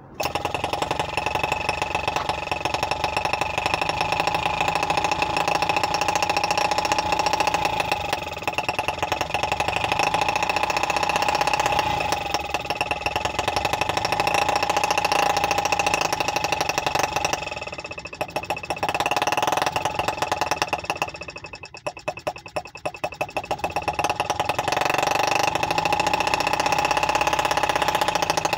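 Stirlingkit M12b 2.6 cc four-stroke model gas engine starting and running at high speed, a steady high buzzing whine. Its speed sags and recovers several times, most deeply about two-thirds of the way through.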